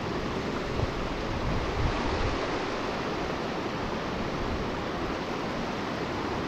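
Water rushing steadily through a spillway in a log dam, an even wash of noise.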